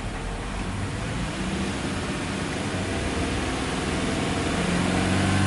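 Subaru Impreza G4 2.0i-S's 2.0-litre flat-four boxer engine being revved in park, heard from the cabin. It rises from idle at about 1,000 rpm, climbing steadily in pitch and loudness from about a second in to about 2,500 rpm near the end.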